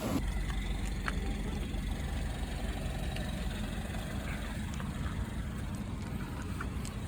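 A vehicle engine running, a steady low hum with a few faint ticks over it.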